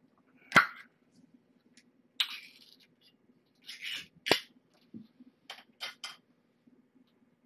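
A spoon clicking and scraping against a small bowl as kitten food is scooped out: about eight irregular sharp clicks and short scrapes, the loudest about half a second in and just after four seconds, over a faint steady low hum.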